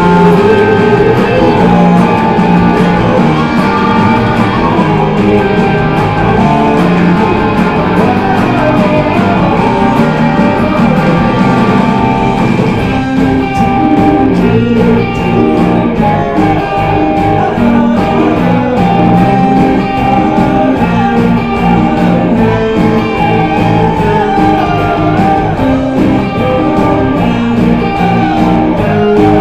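Band music: a rock song with guitar to the fore over a steady beat.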